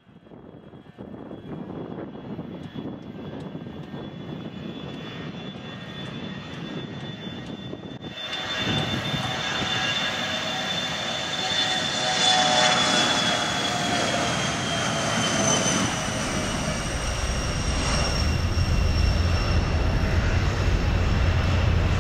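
Electronic part of a contemporary concert piece: a swelling roar of noise with a steady high whistle that slowly falls in pitch. More gliding tones join about eight seconds in, and a deep rumble builds near the end.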